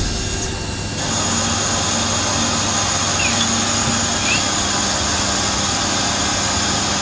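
TORNOS DT26 Swiss-type CNC lathe machining a brass part: a steady machine hum, joined about a second in by a constant high whine, with a couple of faint short chirps.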